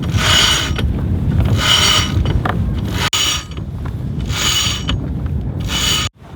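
Halyard pulley blocks running as the mainsail of a traditional Dutch sailing barge is hauled up by hand, in about five pulls, each a high whir lasting under a second.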